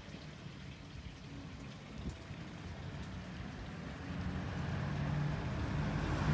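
Outdoor background noise: wind-like hiss over a low, steady hum, both growing louder toward the end.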